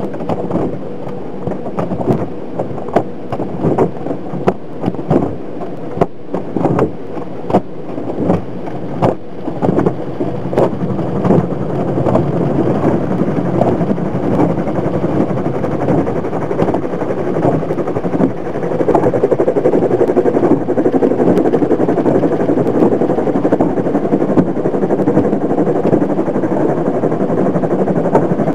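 Automatic car wash heard from inside the car. Rotating wash brushes slap against the body and glass in a run of irregular knocks over a rushing noise. About twelve seconds in this gives way to a steady rush of water spraying onto the car, which gets louder about nineteen seconds in.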